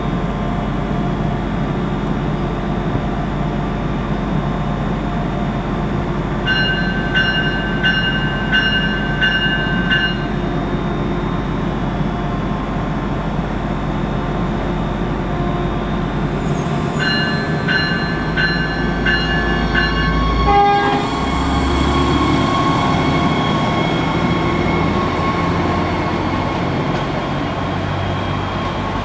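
Stadler GTW diesel multiple unit idling at the platform with a steady low hum. Twice comes a run of evenly spaced electronic beeps, about two a second, from the door-closing warning. About two-thirds in, the diesel engine picks up as the railcar pulls away.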